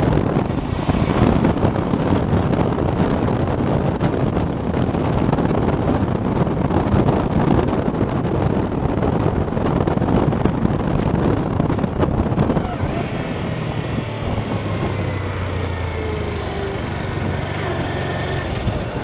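Motorcycle on the move: wind rushing over the camera microphone with the engine running underneath. About thirteen seconds in the wind eases and a steady low engine hum comes through as the bike slows toward a junction.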